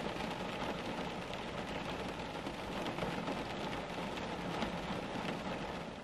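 Steady rain falling, an even hiss with the patter of many individual drops.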